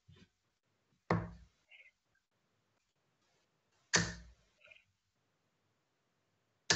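Steel-tip darts thudding into a bristle dartboard: three sharp hits roughly three seconds apart.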